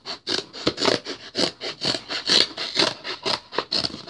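Quick repeated rasping scrapes on a cardboard shipping box, about four or five strokes a second, as it is being cut open.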